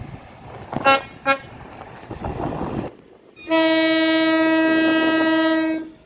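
Train horns: two short blasts about a second in, then a higher, steady horn note held for about two and a half seconds that stops abruptly.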